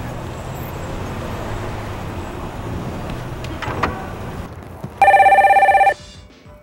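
A telephone rings once, a loud rapidly trilling ring of about a second, coming about five seconds in. Before it there is a steady low background rumble and a short knock.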